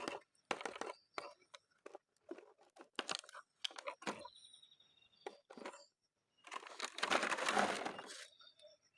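Plastic toy packaging being handled: irregular crinkles, clicks and tearing, with a longer, louder stretch of rustling late on.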